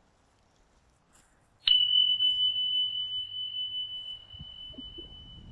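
A small metal chime struck once, ringing one high, pure tone that slowly fades away.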